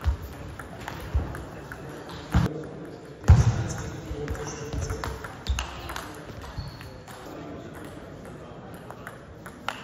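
Table tennis rally: the plastic ball clicks sharply off bats and table roughly once a second, with the loudest knock about three seconds in. Voices from a busy sports hall carry on underneath.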